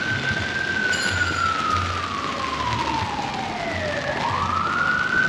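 Emergency vehicle siren wailing: one long tone that slowly falls, then sweeps quickly back up about four seconds in. Underneath runs a steady background hiss.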